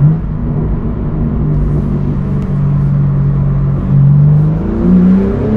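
BMW M4 G82's 3-litre twin-turbo inline-six running through a full titanium valved cat-back exhaust. It holds a steady, loud low hum, then rises in pitch near the end as the engine revs up.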